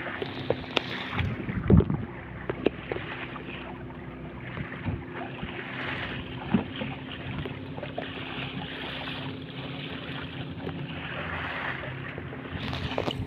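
Small wooden fishing boat's engine running steadily under way, over the rush of water along the hull and wind noise. A few sharp knocks come in the first three seconds.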